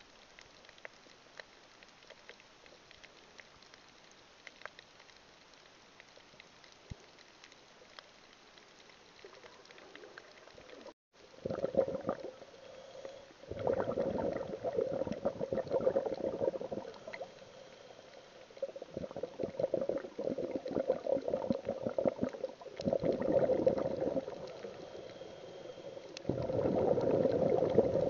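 Underwater sound picked up by a snorkeller's camera below the surface. At first only faint scattered clicks. About eleven seconds in, a loud bubbling, gurgling churn of water begins and comes and goes in several spells of a few seconds each.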